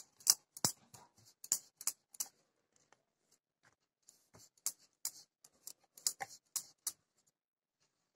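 Wooden rolling pin rolling dough on a round wooden board (chakla), making a string of short, light clicks and knocks as the pin and board shift. They come in two spells with a pause of about two seconds between.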